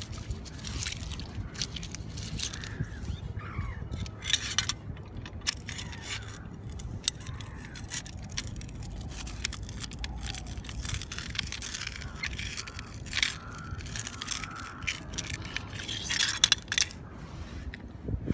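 Wet shingle and pebbles on the Thames foreshore crunching and scraping as they are stepped on and moved about, in irregular clicks and crunches over a steady low rumble.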